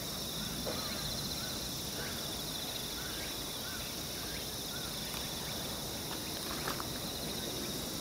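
Steady chorus of crickets and other insects with a fast pulsing trill, over a low rushing noise. Short chirps that rise and fall come roughly once a second, and a single sharp click sounds about two-thirds of the way through.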